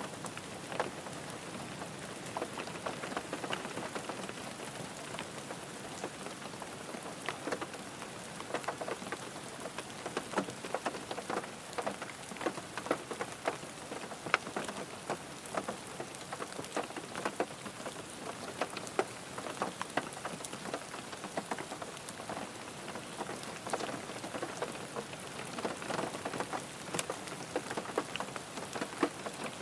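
Steady rain falling on a car, with many separate drops striking sharply over a constant hiss.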